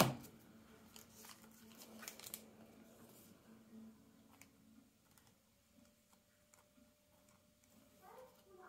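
Trading cards being handled: faint clicks and rustles as cards are shuffled through and set down on a cloth-covered table, with a sharper tap right at the start.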